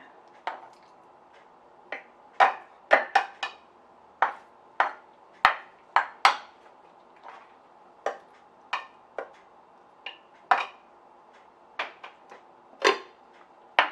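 A string of irregular, sharp clinks and knocks of kitchen utensils and dishes being handled, more than a dozen in all, with no motor running.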